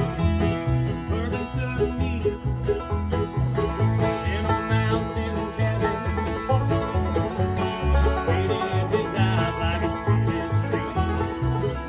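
A band playing instrumental music with plucked strings over a bass line that steps about two notes a second.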